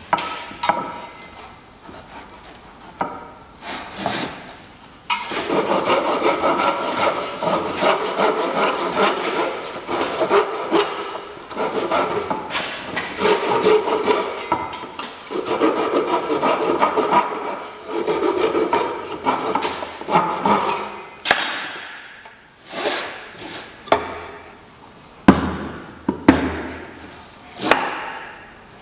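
Rapid back-and-forth strokes of a hand tool on white oak, sawing-like, running for about sixteen seconds from about five seconds in, with a few separate wooden knocks and taps before and after.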